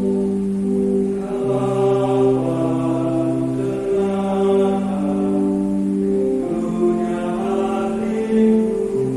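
Church choir singing a slow communion hymn in long, held chords that shift every second or two.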